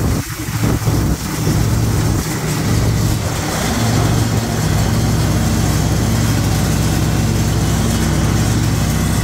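Kohler Command Pro 25-horsepower V-twin engine of a Cub Cadet Enforcer commercial zero-turn mower running steadily while the mower drives across a lawn. There are a few brief dips in the sound in the first two seconds.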